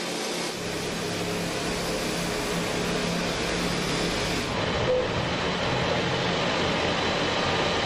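Heavy machinery in a granite quarry running steadily: a continuous rumble and hiss with a low hum.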